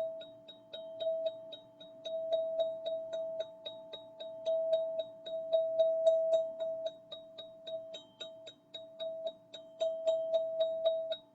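A gold ZenTube sound-healing instrument struck quickly and repeatedly, about four strikes a second, over one steady ringing tone that swells and fades.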